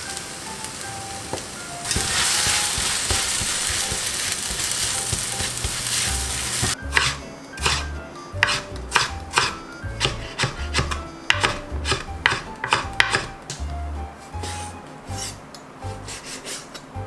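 Fish cake and vegetables sizzling in a stainless pan as chopsticks stir them, for about the first seven seconds. Then a chef's knife striking a wooden cutting board as it julienned a Korean leek, about two cuts a second, followed by softer knife cuts through raw pork on a plastic board. Soft background music with a bass line runs underneath.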